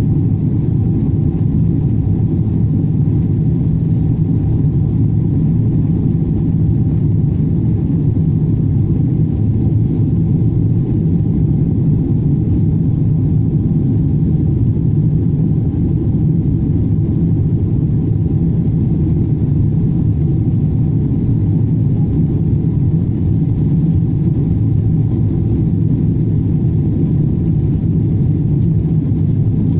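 Boeing 777-200 cabin noise in flight after takeoff: a steady, deep roar of the engines and the rushing airflow, unchanging throughout.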